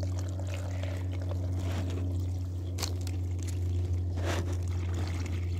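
Water pouring steadily from a plastic jug into a clear plastic shoebox, splashing and trickling onto the water already inside as the homemade quail waterer fills. A steady low hum runs underneath.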